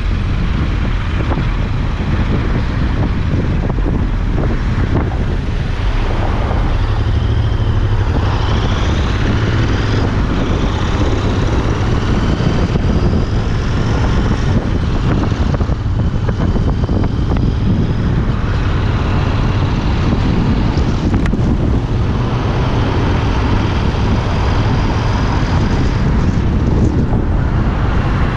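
Royal Enfield Interceptor 650's parallel-twin engine running steadily while riding, picked up by a body-worn recorder, mixed with wind noise on the microphone and road traffic.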